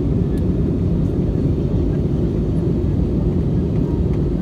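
Steady low rumble of an airliner cabin in flight, the jet engines and rushing airflow heard from a window seat, as the aircraft descends toward landing.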